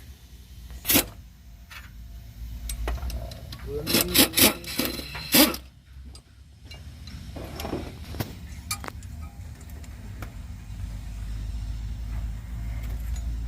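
Metal tools and engine parts clanking and knocking during engine removal, a sharp knock about a second in and a cluster of knocks around the middle, over a low rumble that grows toward the end.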